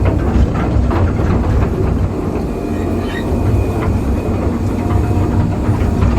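Excavator's diesel engine running steadily with a heavy low rumble, with a faint whine joining partway through.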